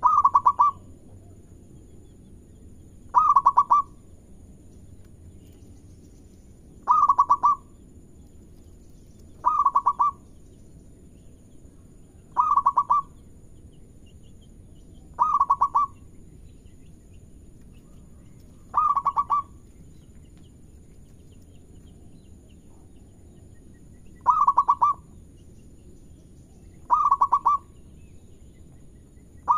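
Zebra dove (perkutut) cooing its song: about ten short calls, each a quick run of rapid notes, repeated roughly every three seconds with one longer pause about two-thirds of the way through.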